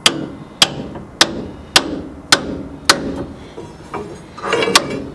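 Large hammer striking a pitman arm to seat it on the truck's steering gearbox shaft: six sharp metal blows about every half second, then a short busier stretch with one more blow near the end.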